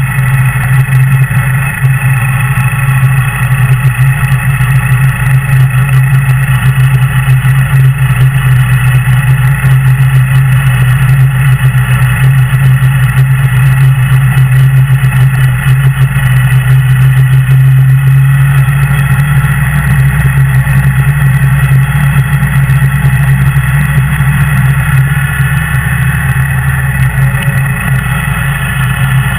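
Kawasaki W800's air-cooled parallel-twin engine running steadily at low road speed, a loud, even low hum.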